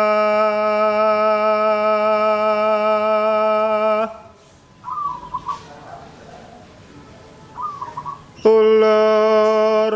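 A singer holds one long, steady note of a Javanese kidung chant, breaking off about four seconds in. In the gap a perkutut (zebra dove) gives two short coos, and the long sung note starts again near the end.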